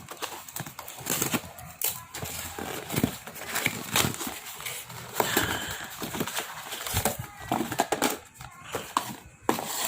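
Plastic packaging crinkling and rustling by hand as a parcel is opened, with many irregular crackles and clicks.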